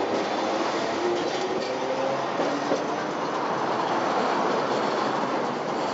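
A tram running along street track, with steady rumbling wheel noise and a faint motor whine that slides up and down in pitch.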